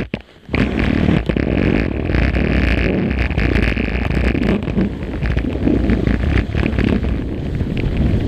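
Skis scraping and hissing over packed, chopped snow at speed, mixed with wind rushing over the GoPro Hero 3's microphone. The noise starts abruptly about half a second in and then runs on steadily.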